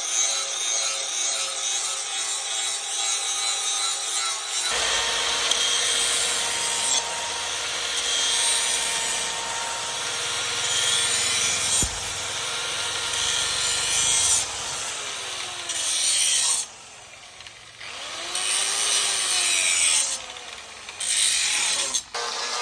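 A workshop tool cutting or sanding: a coarse rubbing, sawing sound over a steady motor-like tone. It cuts out briefly twice near the end, with the pitch dipping and rising around the stops.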